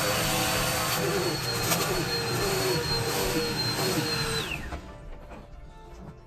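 A vacuum cleaner runs with a steady high whine. It is switched off about four seconds in, and its pitch falls away as the motor spins down.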